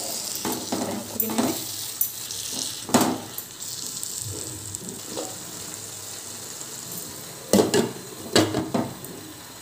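Spice masala sizzling in a frying pan as a wooden spatula stirs and scrapes it, with sharp knocks of the spatula against the pan, loudest about three seconds in and in a cluster near the end.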